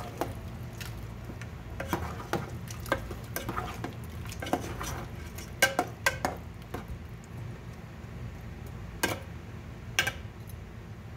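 Metal spoon stirring chicken adobo in a pot, scraping and knocking irregularly against the pot, with a couple of sharper knocks near the end. The braising liquid sizzles steadily underneath.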